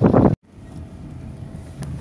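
Wind buffeting the microphone in loud gusts that cut off abruptly about a third of a second in. A quieter, steady low wind rumble with a few faint clicks follows.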